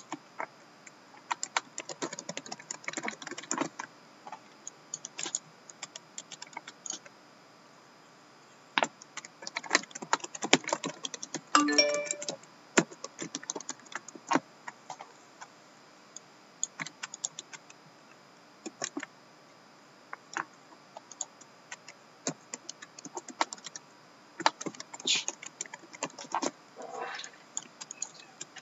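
Computer keyboard typing in irregular spurts of clicks with pauses between them, and one brief pitched sound partway through.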